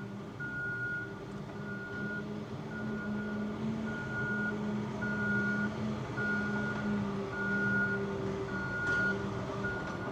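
A vehicle's reversing alarm beeping at an even pace, about one beep a second, over the low hum of its engine.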